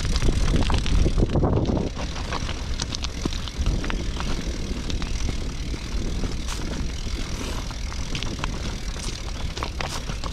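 Double-stack intermodal freight train rolling past on the near track: a steady low rumble of wheels on rail, with scattered sharp clicks and clanks from the wheels and cars.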